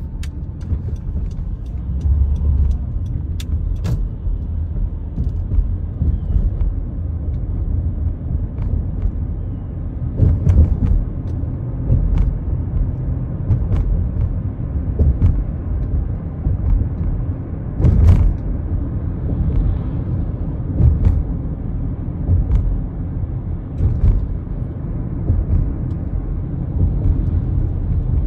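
A car driving: a steady low rumble of engine and tyres on the road, with scattered sharp knocks and taps, the loudest a little past the middle.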